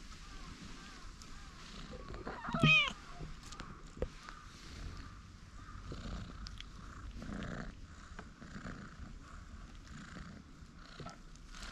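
An orange tabby cat meows once, loud and short, about two and a half seconds in, then purrs softly with a slow, even rhythm while it is petted.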